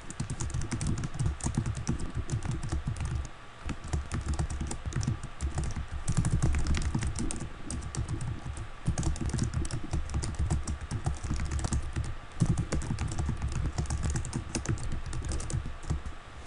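Rapid typing on a computer keyboard, in several runs of quick keystrokes broken by brief pauses.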